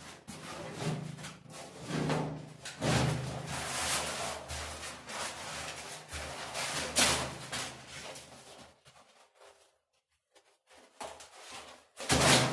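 Litokol acrylic waterproofing coating being peeled and torn off a plastered wall by hand: a run of ripping and rustling noises, a pause of about two seconds, then one loud rip near the end. The coating comes away cleanly because it has not bonded to the wall.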